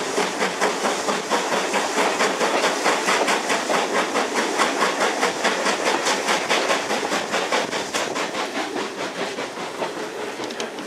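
Steam train running, heard from an open carriage window: a fast, even beat of about three to four strokes a second over a steady rushing noise. It grows a little quieter near the end.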